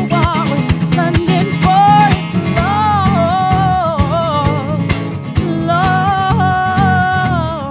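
Live acoustic guitar strummed in a fast, driving rhythm, with a voice singing a melody without clear words over it and holding long notes in the second half.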